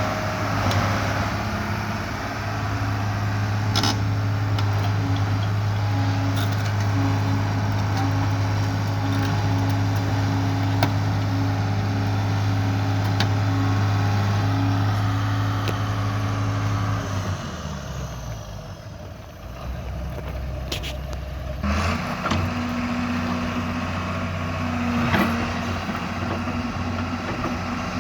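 John Deere 690B excavator's diesel engine running steadily. Past the halfway point its pitch falls away as it slows, and a few seconds later it picks up abruptly and runs steadily again.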